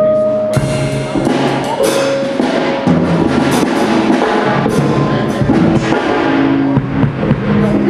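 Live band playing loudly: a drum kit keeping the beat under bass guitar and sustained pitched notes.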